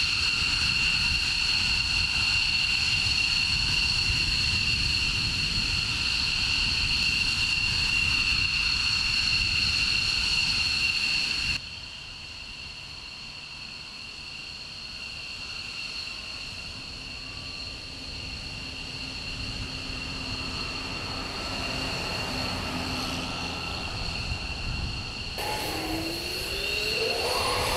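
F-22 Raptor jet turbines running on the flight line: a steady high two-tone whine over a low rumble. About twelve seconds in it drops to a quieter whine, and near the end the pitch glides up and down as the engines change speed.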